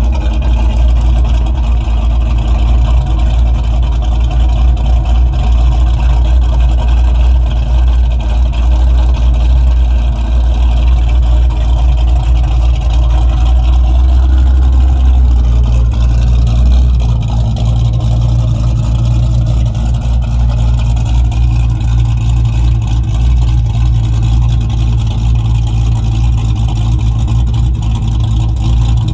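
Fox-body Ford Mustang LX's 5.0 V8 with a 303 cam, idling cold with a lope through an SLP Loudmouth exhaust. Its deep note shifts a little higher just past halfway.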